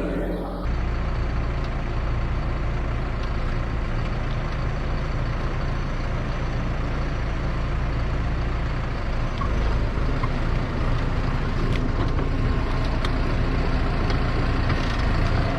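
Primetech 175 tracked forestry mulcher's diesel engine running steadily under load as the machine is driven up onto a trailer.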